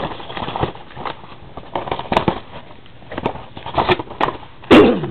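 Trading cards and their packaging being handled: an irregular run of soft clicks, rustles and crackles, with a louder sharp sound near the end.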